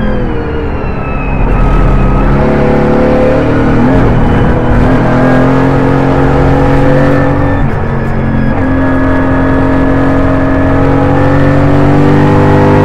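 Mercedes-AMG GT4's twin-turbo V8 heard from inside the cockpit under race conditions. Its pitch falls as the car slows over about the first two seconds, then rises as it accelerates, with a brief dip about four and a half seconds in and another near eight seconds, before it climbs steadily again.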